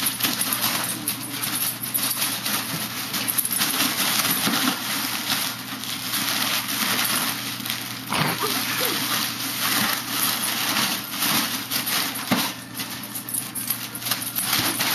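Foil (mylar) balloons crinkling and rustling with many small crackles as a dog bumps into them and tangles in their ribbons.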